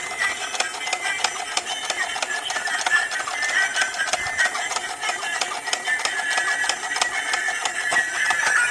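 Battery-powered toy vehicle running: its small motor and plastic gears clatter with rapid, irregular clicks over a steady high whine.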